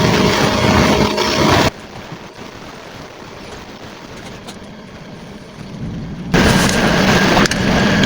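Electric air mattress pump motor and fan running with a steady whir and hum. It is switched off abruptly just under two seconds in and starts again abruptly a few seconds later, being powered from a battery as it is tested after fresh carbon brushes were fitted.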